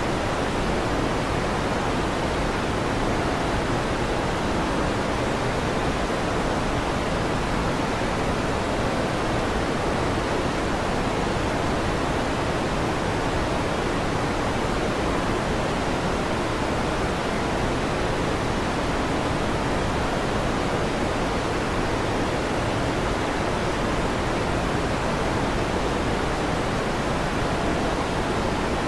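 Electric fan running, a steady even rushing noise with no change in level and no thunderclaps.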